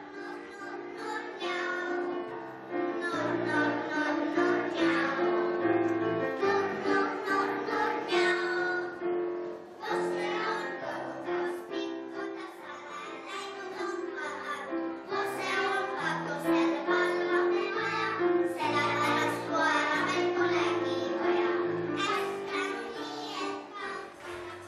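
A group of young children singing a song together, with instrumental accompaniment underneath.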